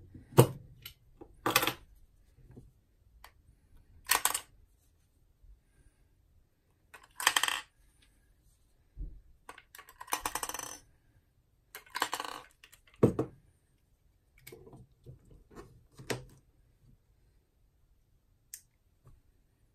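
AA rechargeable batteries clinking and clattering as they are handled and loaded into an underwater strobe's battery compartment, with clicks of the battery cap being removed and refitted. About a dozen irregular knocks and short rattles, separated by quiet gaps.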